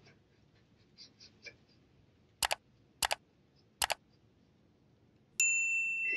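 Three sharp double clicks of a computer mouse, press and release, spaced about half a second to a second apart, followed near the end by a bright electronic chime holding a high ringing tone.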